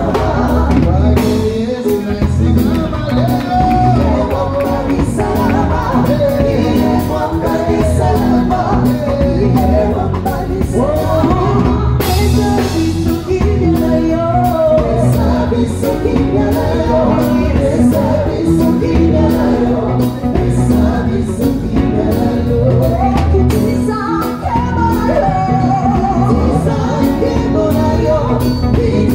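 Live gospel band playing: a lead singer with backing vocals over electric guitars and a drum kit, loud through the stage PA, with a steady beat and a crash about twelve seconds in.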